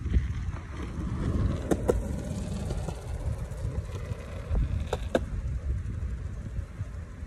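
Skateboard wheels rolling on a concrete path, the rolling noise swelling as the board passes, with two pairs of sharp clacks, about two seconds in and again about five seconds in, as the wheels cross seams in the concrete. A steady low rumble of wind on the microphone runs underneath.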